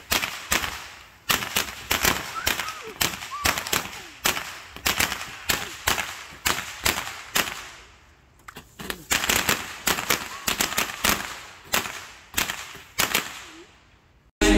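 A 96-shot consumer firework cake firing in quick succession, with sharp bangs and crackles about two or three a second. The shots lull briefly about eight seconds in, then resume.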